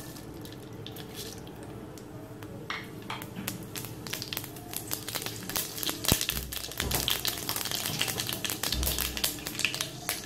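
Mustard and fenugreek seeds frying in hot mustard oil: a light sizzle, then the mustard seeds start to crackle and pop about three seconds in, popping faster and louder as they go. There is a single knock about six seconds in.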